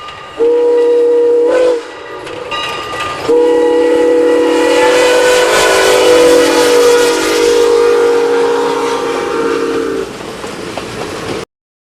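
Northern Pacific no. 328's six-chime "Milwaukee" steam whistle blowing a short blast, then a long blast of about seven seconds. Each blast is a chord of several steady tones sounding together, with the rumble of the moving train between and under them.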